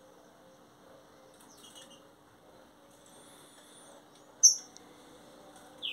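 Caged songbirds calling: a few faint high chirps, then one sharp loud chirp about four and a half seconds in. At the very end comes the first loud descending whistled note of a young green-winged saltator's (trinca-ferro's) song.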